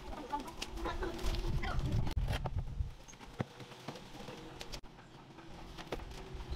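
Chickens clucking and small birds chirping in the background, mostly in the first two seconds. A few sharp knocks follow as a green plastic wheelie bin is tipped and handled.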